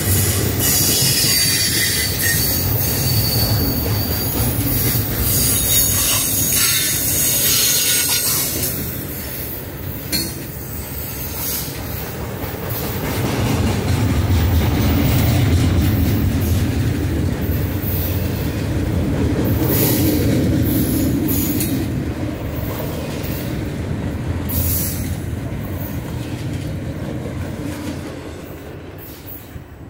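Double-stack intermodal freight train rolling past, its container well cars rumbling and clattering over the rails. A screaming wheel squeal sounds in the first couple of seconds. The sound falls away near the end as the last car passes.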